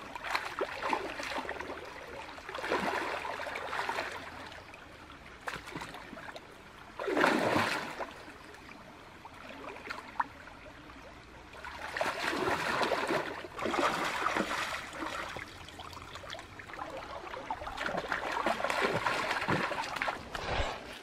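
Hands splashing and churning in shallow stream water while groping for fish, in irregular bursts with the loudest splash about seven seconds in, over the steady flow of the stream.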